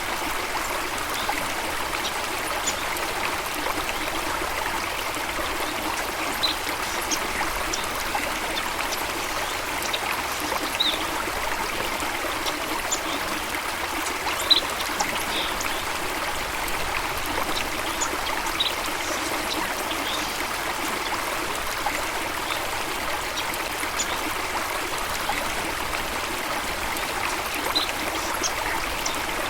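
Steady rush of running water, with short high bird chirps scattered through it every second or two.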